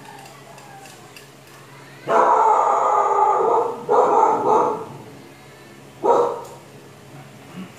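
A dog barking: one long drawn-out bark about two seconds in, then a shorter one and a brief one about two seconds later.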